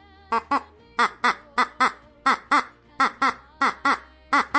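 A bird giving short calls in quick pairs, about seven pairs in a row. Each call rises and falls in pitch.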